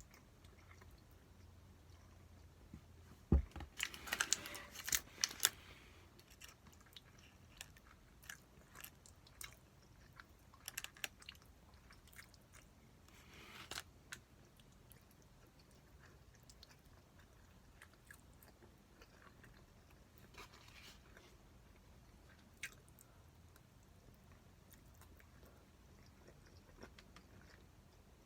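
A person eating stir-fried pork, with soft chewing and scattered crisp clicks and taps. There is a dense run of clicks with a low knock about three seconds in, shorter runs around the middle, and only the odd click in the second half.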